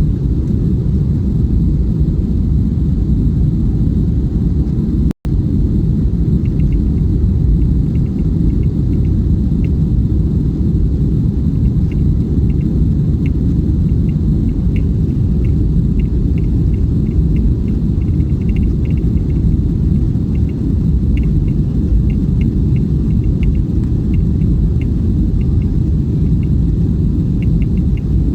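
Airbus A320 at takeoff power, heard from inside the cabin: a loud, steady low rumble of engines and airflow, with faint irregular light ticks or rattles over it. The sound cuts out for an instant about five seconds in.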